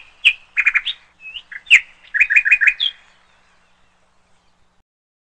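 A small bird chirping: short high chirps and quick runs of about four notes, stopping about three seconds in.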